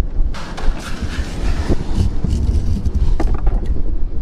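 Wind buffeting the microphone with a steady low rumble, joined about half a second in by rustling and scraping and a few sharp knocks.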